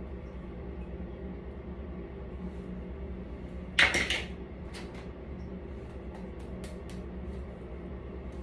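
A sudden knock-like clatter about four seconds in, then several light clicks, over a steady low hum.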